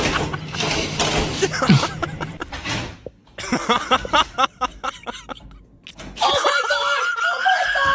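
People laughing, with a run of quick bursts of laughter in the middle, and voices around it. Near the end comes a long, wavering, high-pitched vocal sound.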